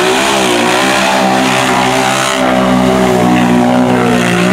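ATV engine held at high revs, its pitch wavering and then holding steady, as the quad churns through a deep mud hole.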